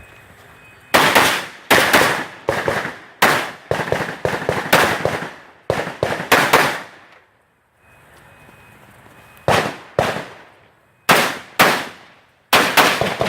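Rifle shots fired rapidly. About a dozen come in quick succession over the first six seconds, then after a pause of about two seconds more shots follow, mostly in pairs.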